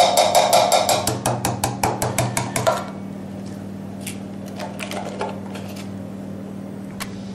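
Cream poured from a carton into a pot, glugging in quick even pulses for about three seconds, then a few light clicks and knocks. A steady low hum runs underneath.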